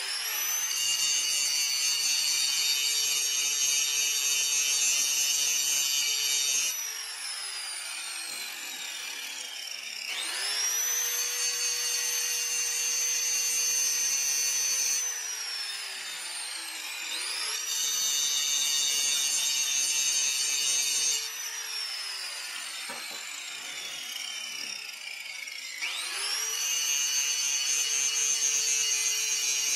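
Electric angle grinder grinding on the cracked metal body of a bench vise, switched on and off four times: each start is a rising whine, each stop a falling whine as the disc coasts down, with the harsh grinding noise of the disc on the metal while it runs.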